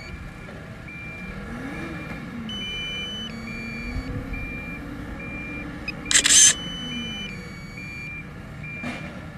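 Repeated short electronic beeps at two pitches over a work vehicle's engine that rises and falls in pitch. A camera shutter sound comes about six seconds in.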